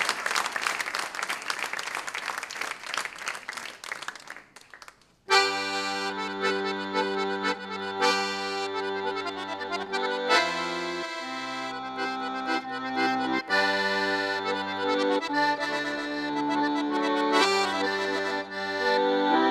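Applause dying away over the first few seconds, then accordion music for the Sardinian ballu fluminesu folk dance starting suddenly about five seconds in: a steady dance tune of held chords over a changing bass.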